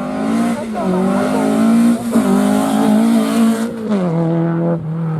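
Rally car engine running at high revs under power, with brief breaks in its note about one and two seconds in and a hiss of tyre noise over it; about four seconds in the revs drop and the engine settles to a steady lower note.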